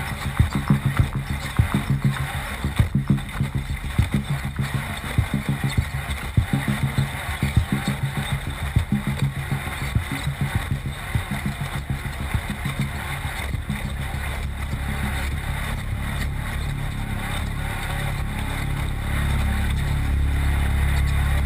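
Off-road race car engine running, pulsing unevenly with frequent jolts for about the first half. It then settles into a steadier drone that gets louder near the end.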